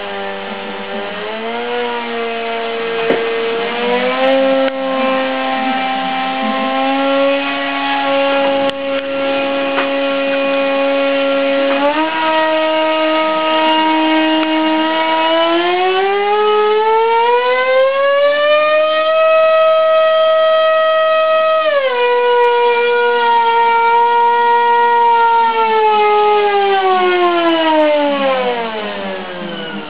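Brushless electric motor and propeller of a model plane running up, a loud whine whose pitch steps up and holds, climbs higher in the middle, drops back, then winds down near the end as the throttle is moved.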